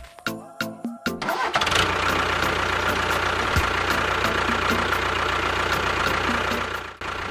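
An engine starts about a second in and runs steadily, then cuts off near the end. Rhythmic beats are heard before it starts.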